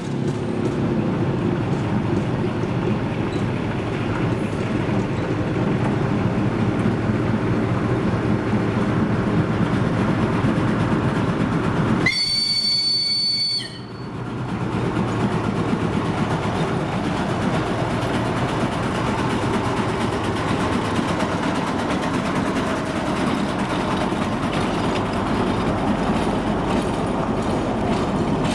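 TU4 narrow-gauge diesel locomotive's V12 diesel engine running steadily as it pulls a passenger car away. Near the middle comes one horn blast of about a second and a half that cuts off sharply. Near the end the wheels click over the rail joints.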